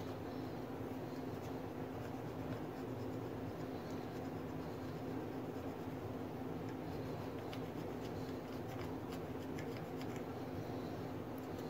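Light scratching strokes of a hand bearing scraper shaving high spots off the babbitt lining of a Franklin engine's crankshaft main bearing, coming more often in the second half, over a steady low hum.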